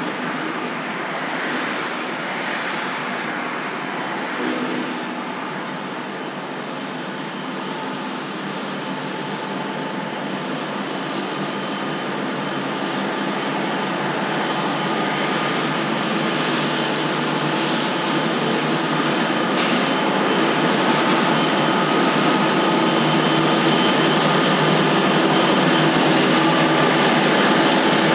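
Three 90 class diesel-electric locomotives, each with an EMD 16-710 sixteen-cylinder two-stroke engine, approaching and passing beneath, their engine drone growing steadily louder. A high wheel squeal sounds through the first few seconds, over a steady hiss of heavy rain.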